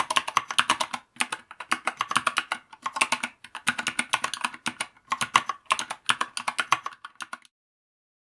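Fast typing on a 3D-printed Dactyl Cygnus split mechanical keyboard fitted with Zeal Clickiez switches: quick runs of key clicks with a couple of brief pauses, stopping abruptly shortly before the end.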